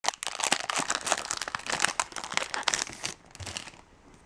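Foil booster-pack wrapper of Yu-Gi-Oh cards crinkling and tearing as it is opened: a dense run of crackles that dies away after about three and a half seconds.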